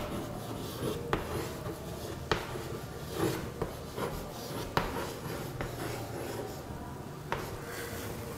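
Chalk writing on a chalkboard: soft scratching strokes broken by sharp taps each time the chalk strikes the board, at irregular intervals of about a second.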